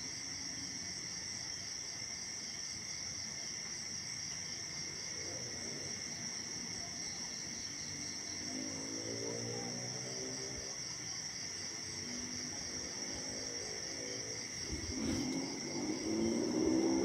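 Night insect chorus of crickets, a steady high-pitched trilling that runs without a break. In the second half a lower sound with a pitch, of unclear source, comes and goes and grows louder near the end, with one short click.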